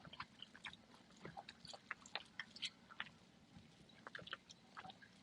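Faint, close-up chewing of a macaroni salad with lettuce and ham: soft, irregular mouth clicks and smacks.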